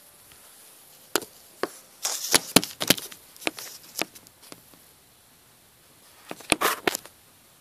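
Handling noise from the recording device being fumbled and set in place by hand: a run of sharp knocks and clicks on its microphone, bunched about two to three seconds in and again near the end.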